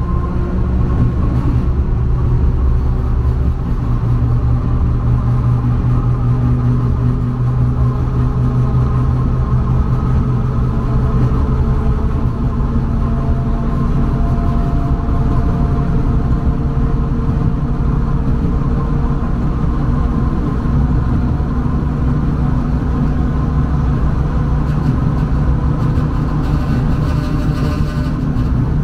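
A tram running, heard from inside the passenger car: a steady low rumble with faint whining tones that come and go.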